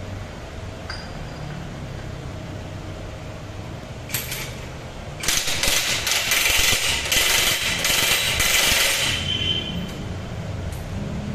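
Cordless impact wrench hammering: a short burst about four seconds in, then a run of about four seconds of rapid hammering that ends in a brief whine as the motor spins down. It is loosening a fastener on a scooter.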